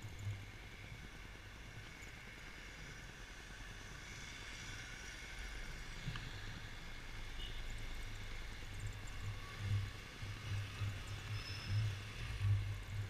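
Yamaha XMAX 250 scooter's single-cylinder engine running under way, with a faint steady whine. An uneven low rumble swells in bursts through the second half.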